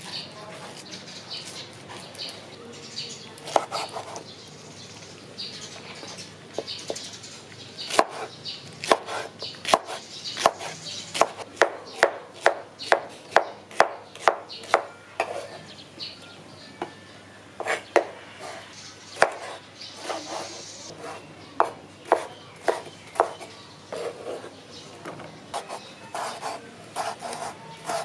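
Large kitchen knife chopping pineapple, and later tomato, on a wooden cutting board: sharp knocks of the blade striking the board, coming in a steady run of about two chops a second through the middle, more scattered before and after.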